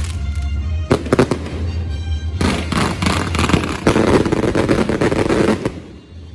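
Aerial fireworks going off with dense, rapid crackling: a short cluster about a second in, then a longer volley from about two and a half seconds in that stops abruptly near the end. Music plays steadily underneath.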